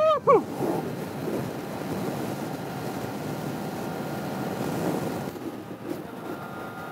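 Motorcycle at high motorway speed: a steady rush of wind on the rider's microphone over the engine, easing a little about five seconds in.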